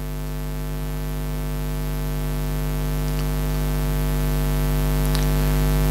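Steady electrical mains hum and hiss from a PA sound system, a stack of even steady tones that slowly grows louder, with a couple of faint clicks.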